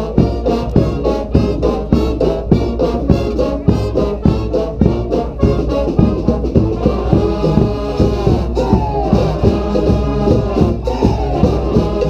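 Street brass band playing a New Orleans-style brass-band tune: trombones, trumpets and saxophones over drums keeping a steady beat. From about halfway through, the horns hold long notes with sliding, falling smears.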